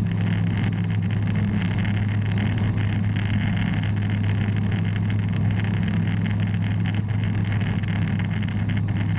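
Bristell light aircraft's engine and propeller droning steadily in flight, heard from inside the cockpit.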